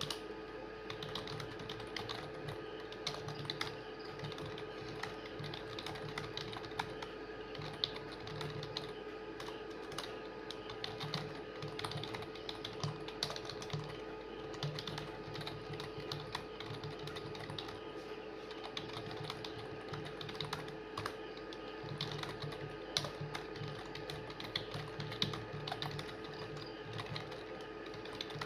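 Fast continuous typing on a computer keyboard: a dense, irregular stream of key clicks with occasional louder strokes, over a steady low hum.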